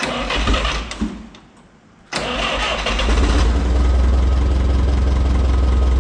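Clark forklift engine being started: a first burst of cranking dies out after about two seconds, then on a second try it catches about two seconds in and settles into a steady idle.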